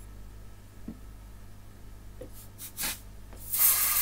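Aerosol freeze spray hissing from the can's extension straw onto a circuit board. There is a brief spurt near three seconds, then a longer, louder blast from about three and a half seconds. The spray chills components to find a heat-sensitive fault, which is suspected to be a bad capacitor.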